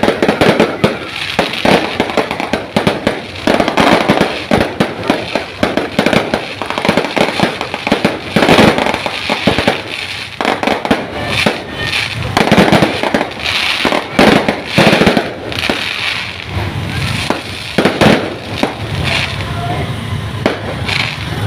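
Fireworks going off in quick, irregular succession: a dense string of sharp bangs and crackles, with no let-up.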